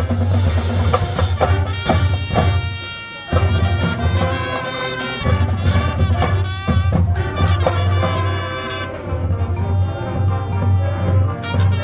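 High school marching band playing its show music, with a steady low bass line, dropping away for a moment about three seconds in before coming back in full.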